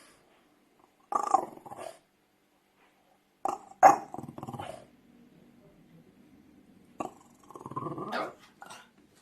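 French bulldog barking in three short bouts, the last one longer and drawn out.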